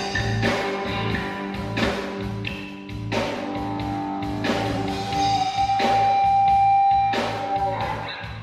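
Instrumental reggae band music led by guitar over a steady, pulsing bass line. In the second half a lead line holds one long note for about three seconds.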